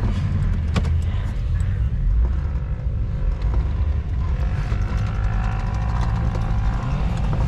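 Off-road vehicle's engine running hard under heavy throttle on an off-road obstacle, with a steady low rumble and a few sharp knocks.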